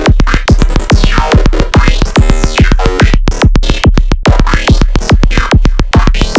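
Electronic dance music with a fast, steady pulsing beat and synth sweeps that rise and fall. There are a few brief stuttering dropouts about halfway through.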